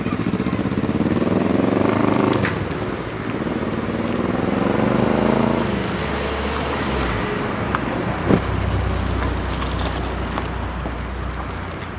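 Road traffic crossing a railway level crossing: a motorcycle and cars drive over the tracks. An engine accelerates through two gears in the first half, rising in pitch each time. A car then passes close with a steady low engine hum, and there is a single sharp knock about 8 seconds in.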